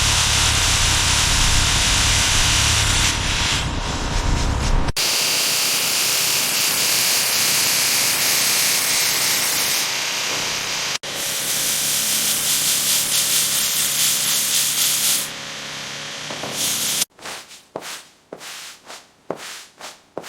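Hand work on rusted car parts: a steady, loud scouring hiss in three abruptly cut sections, then short rubbing strokes at about three a second near the end.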